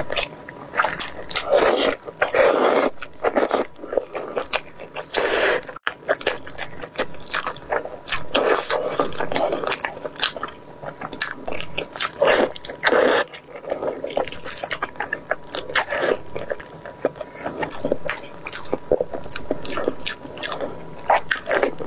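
Close-miked chewing and biting of braised pork knuckle, with gloved hands pulling the meat apart: a dense run of short wet clicks and smacks, with a few louder, longer tearing and smacking stretches.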